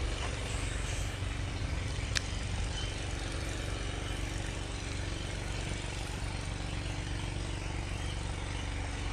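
Steady low hum of an engine running, with a single sharp click about two seconds in.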